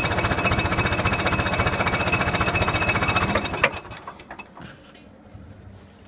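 International Harvester D-239 diesel engine in a TD-7E crawler running steadily with rapid, even firing pulses, then cut off a little over three and a half seconds in with a sharp click and dying away, leaving only faint handling clicks.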